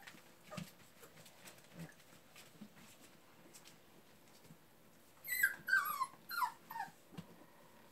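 Labrador Retriever puppies whining: about four short, high whines in quick succession, each falling in pitch, about five seconds in. Before them, only soft scattered taps and scuffles.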